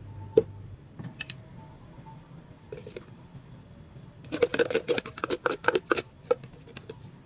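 A ladle clinking and scraping in a plastic measuring jug as diluted coconut milk is scooped out and poured into a pot. There are a few scattered clinks, then a quick run of clatters about four seconds in that lasts under two seconds.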